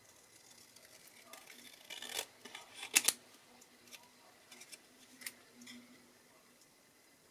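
Long scissors snipping through white card to cut out a small stamped panel: scattered quiet snips, the sharpest a quick double snip about three seconds in, with soft rustling as the card is turned in the hand.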